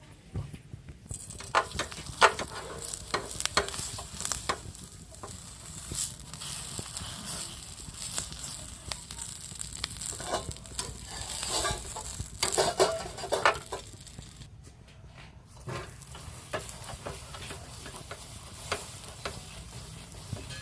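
Stuffed dabeli buns (pav) toasting in oil in a hot pan, sizzling steadily, with frequent scrapes and taps of a spatula. The sizzle starts about a second in and drops out briefly about three-quarters of the way through.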